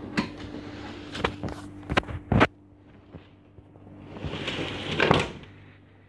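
A door being handled: a run of knocks and clatters, the loudest a sharp bang about two and a half seconds in, over a steady low hum. A rising scraping rustle follows, peaking about five seconds in.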